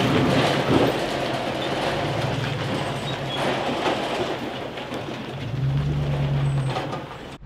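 A vehicle towing a trailer loaded with a rusted 1955 Volkswagen Beetle over a rough, rutted dirt track. Its engine runs steadily, the trailer and the old car's body rattle and clatter, and the engine note grows louder about five and a half seconds in.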